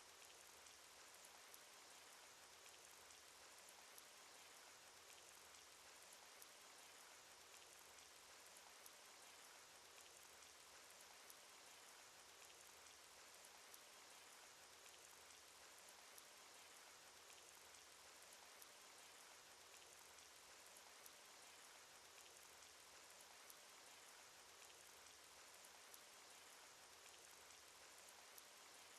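Faint cartoon rain sound effect: a steady patter of many small raindrops, unchanging throughout.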